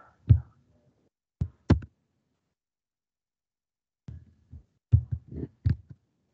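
Computer keyboard keystrokes while code is edited and lines deleted: a single tap, a pair of taps about a second later, then a quicker run of about six taps near the end.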